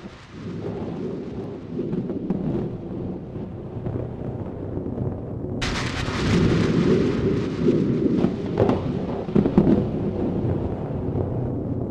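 Thunderstorm sound design from a projection show's soundtrack: low rolling thunder swells up out of silence, and a loud hiss joins suddenly about halfway, with a few sharper cracks near the end.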